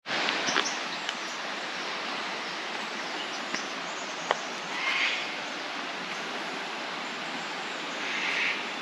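Steady rush of a creek flowing, with a few faint clicks and two brief soft swells of hiss, one about halfway through and one near the end.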